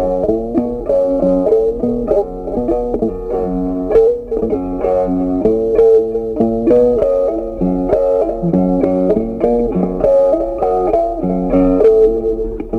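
Background music: a plucked guitar melody over a bass line at an even, moderate level.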